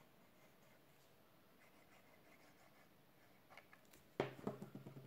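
Near silence with faint handling of a small paper box and a liquid glue bottle, then a few light clicks and a sharp knock about four seconds in, followed by a brief low hum.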